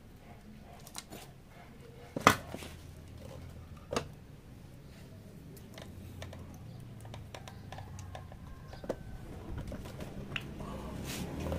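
Scattered metallic clicks and clinks of motorcycle engine parts being handled as the crankshaft and gear shafts are worked out of the split crankcase, with two sharper knocks about two seconds apart. A faint low hum grows slowly underneath.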